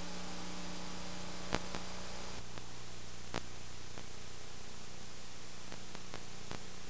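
Steady hiss and low hum from a blank stretch of VHS tape playback, with two faint clicks, one about a second and a half in and a smaller one about two seconds later.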